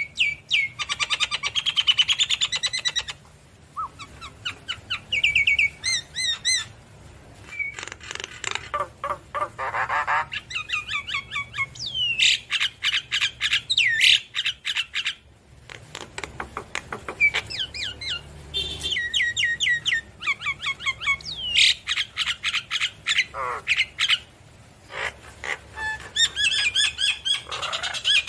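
Javan myna singing vigorously: a long, varied song of rapid runs of short whistled notes, chattering, harsh squawks and sliding whistles, broken by a few short pauses.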